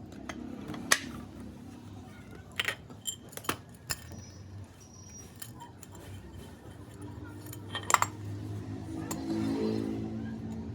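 Metal parts and tools clinking and knocking during ceiling fan repair work: scattered sharp taps, a quick run of them around three to four seconds in and a loud one near eight seconds, over a low steady hum.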